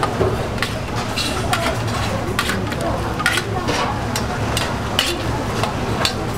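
Stainless steel tongs clinking again and again against a steel bowl and pot rim as noodles are lifted out, over the steady bubbling hiss of a large pot of boiling broth and a low steady hum.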